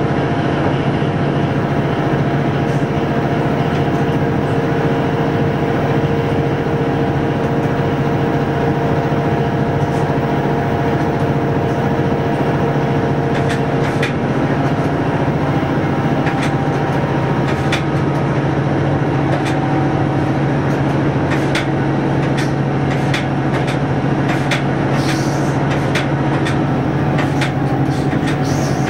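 Local train running, heard from inside the driver's cab: a steady drone whose pitch shifts about halfway through. Sharp clicks of the wheels over rail joints come more and more often in the second half.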